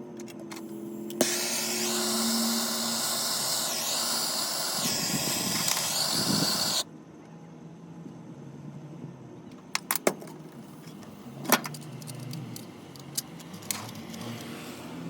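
A steady rushing hiss, switched on suddenly about a second in and cut off abruptly about seven seconds in, followed by a few sharp clicks and knocks.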